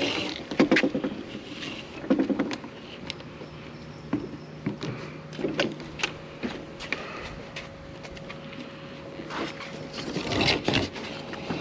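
Spline roller pressing screen spline and mesh into the channel of a metal window screen frame: irregular scrapes and clicks, with a denser scraping stretch near the end. A faint steady hum runs underneath.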